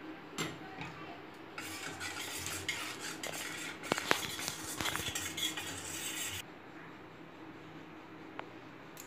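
Wire whisk beating curd and water in a stainless-steel pot, its metal tines scraping and clicking against the pot. It runs for about five seconds, then stops.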